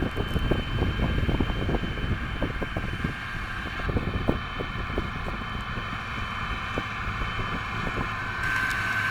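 Harvest machinery running steadily with a high whine that shifts pitch about four seconds in and again near the end, over a low rumble full of crackles and knocks from wind buffeting the microphone.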